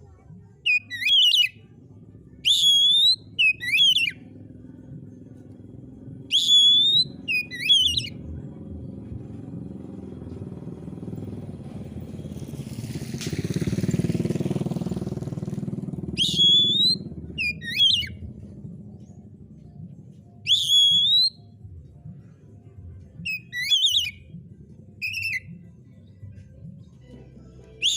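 Oriental magpie-robin (kacer) singing: loud, clear whistled phrases of sweeping and twisting notes, delivered in short bursts every couple of seconds with pauses between. Midway, a low rumble swells and fades under the song.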